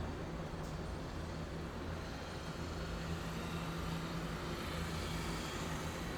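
Steady city street traffic: vehicle engines running with a continuous low hum and an even wash of road noise.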